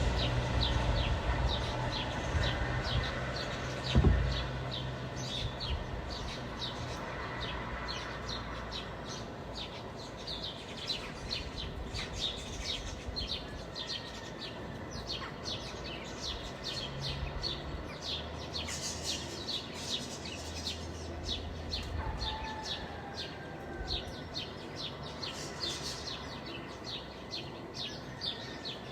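Morning village ambience: small birds chirping continuously in quick repeated chirps, over a low rumble that fades away in the first several seconds. A single sharp thump sounds about four seconds in.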